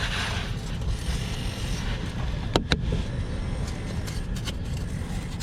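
Sandpaper rasping on a corroded ground cable terminal, briefly at the start, then two sharp clicks in quick succession about two and a half seconds in, with a few fainter ticks after.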